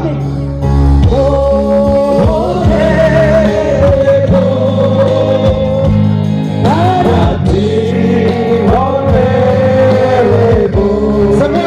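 A man singing into a microphone over a live band, holding long, wavering notes in a high voice.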